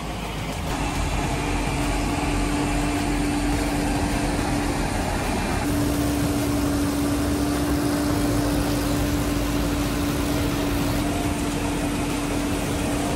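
Potato harvester running: steady engine noise with the rattle of the digging and conveyor webs lifting potatoes, and a steady hum that drops out briefly about five and a half seconds in.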